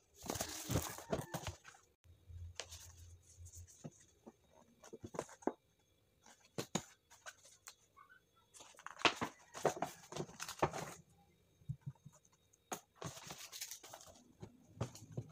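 A thick paper bag and cardboard packaging being handled and unwrapped: irregular rustling and crinkling with small knocks, coming in bursts.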